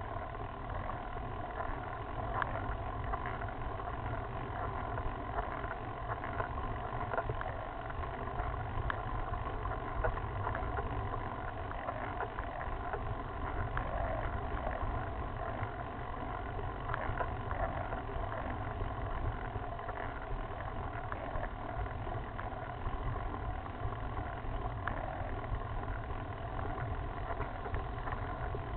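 Steady wind rumble and road noise picked up by a camera mounted on a road bike as it climbs a rough mountain road, with a few faint knocks from the surface.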